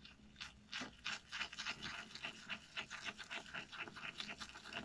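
Semogue silvertip badger shaving brush (24x52 mm knot) scrubbed briskly around a shaving soap in a plastic tub, the bristles rasping against the soap in quick strokes, several a second: the brush being loaded with soap.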